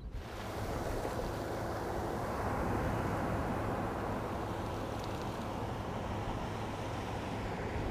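Ocean surf breaking and washing in the shallows: a steady rush of water.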